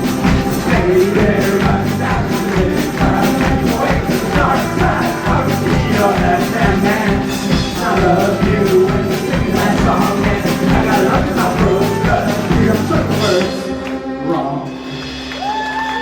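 Live band playing a song with a steady, driving beat and voices, then breaking off near the end, leaving one held low note ringing.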